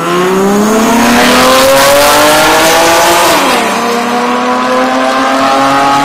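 Cars launching in a street drag race: an engine at full throttle climbs steadily in pitch, drops sharply at an upshift about three and a half seconds in, then climbs again as the cars pull away.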